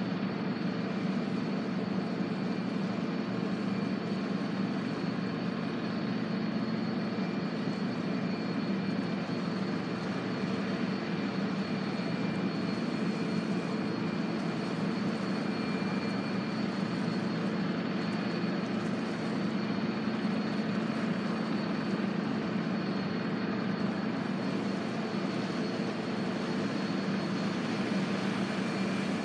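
Steady low mechanical drone, unchanging, with a thin high whine held over it.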